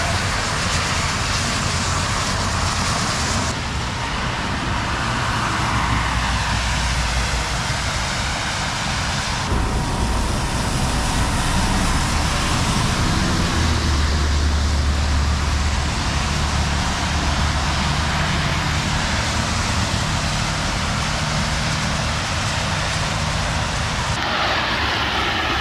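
Freeway traffic on rain-soaked pavement: a steady hiss of tyres on wet road with engine rumble underneath, changing abruptly a few times where the footage is cut.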